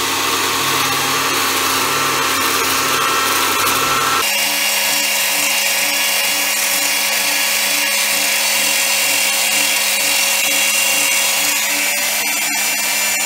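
Electric pasta machine's motor running steadily as its cutter rollers cut a sheet of egg-noodle dough into thin noodles. Its sound changes abruptly about four seconds in, when the low rumble drops away.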